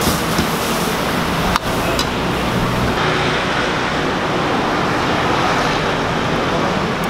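A wok of stir-fry sizzling briefly, then a steady rushing noise as a charcoal brazier is fanned into high flames, with road traffic in the background.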